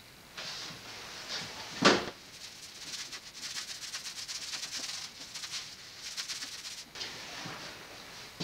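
A single loud thump about two seconds in, then a brush scrubbing quickly back and forth against a backdrop for about five seconds, daubing on a stain of paint.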